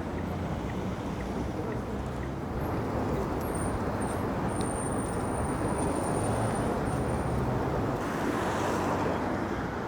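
Steady road traffic noise of vehicles passing, growing a little louder in the second half.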